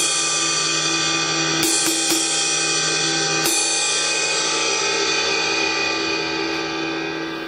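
Paiste PST 5 22-inch rock ride cymbal struck on its body with a drumstick: a stroke at the start, three quick strokes about two seconds in and one more a second and a half later. Then it is left ringing, a long bright wash that slowly dies away near the end.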